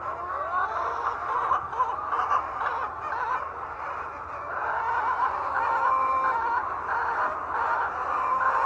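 A flock of laying hens clucking and calling together, many overlapping voices at once.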